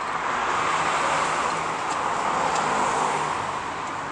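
A car passing on the street. Its tyre and engine noise swells to a peak and eases off toward the end.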